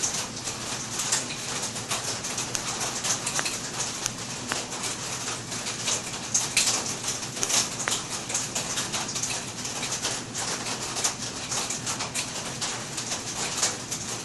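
Rain pattering steadily on the roof of a concrete-block animal house, a dense run of fine irregular taps.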